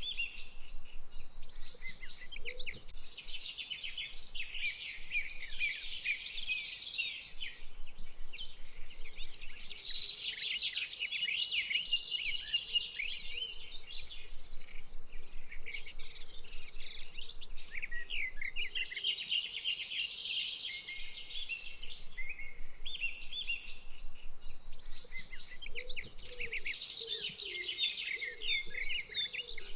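A chorus of many small birds chirping and twittering at once, swelling and easing every several seconds.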